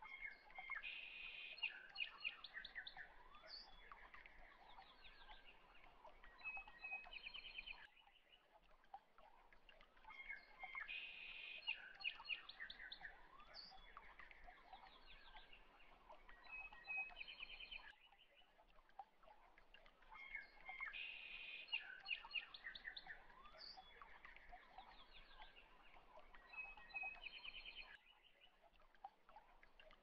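Quiet birds chirping and trilling. The same stretch of birdsong repeats about every ten seconds as a looped recording, with a brief lull before each repeat.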